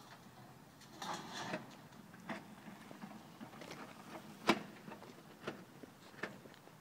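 A broken Honda rolling off a trailer on its ramps: a short scraping rattle about a second in, then a few sharp knocks, the loudest about halfway through.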